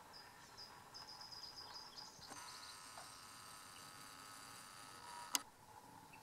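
Faint outdoor ambience with high, thin bird chirps and a quick trill, then several high notes together. There is one sharp click a little over five seconds in.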